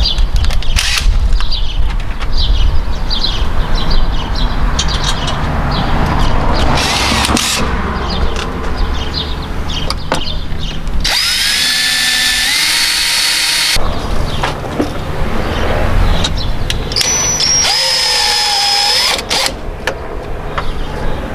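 Cordless drill run in two bursts into the van's engine-bay panel, about halfway through and again near the end; each time the motor whines and steps up in pitch as it spins up. Handling clicks and knocks lie in between.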